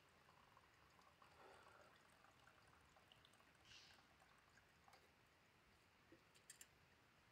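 Near silence: faint steady background hiss with a few small scattered clicks, two sharper ones near the end.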